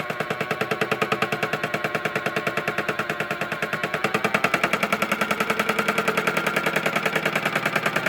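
Modified toy washing machine running, its drum and motor making a fast, even rattle close to ten times a second over a steady motor whine.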